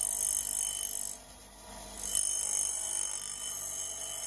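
Grinding wheel grinding a metal bracket, a steady high-pitched whine of metal against the wheel. It eases off about a second in and comes back at full strength about two seconds in.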